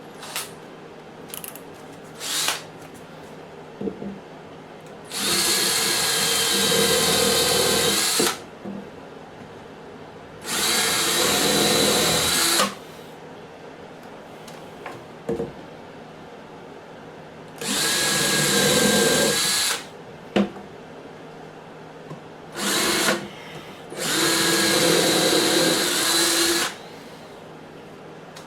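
Drill-driver motor running in five bursts: four of two to three seconds each and one brief one, with small clicks and knocks in between.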